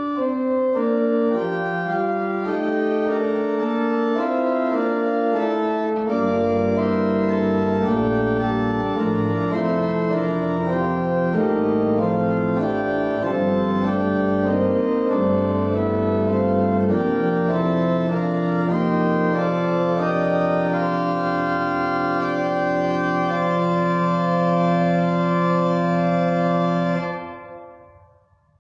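Pipe organ playing slow, sustained chords, with low pedal notes joining about six seconds in; the music ends on a long held chord that fades away near the end.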